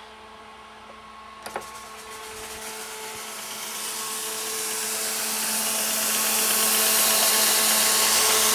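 Antari fog machine switched on: a sharp click about a second and a half in, then a rushing hiss that builds steadily over several seconds as its fan spins up and blows the fog out, over a steady hum.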